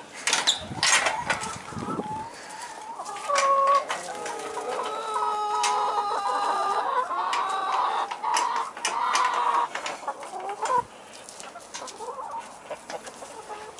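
A flock of chickens clucking and squawking, many calls overlapping, densest from about three seconds in until near eleven seconds, then thinning out. Sharp clicks and knocks in the first two seconds, from the metal latch of a chain-link gate being worked.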